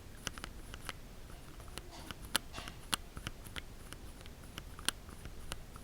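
Gateron Linjar linear mechanical keyboard switch pressed repeatedly on-center right at the microphone: a run of faint, irregular clicks and soft scrapes of the stem travelling and bottoming out, a few presses louder than the rest. The stem runs with very low friction, a smooth linear switch.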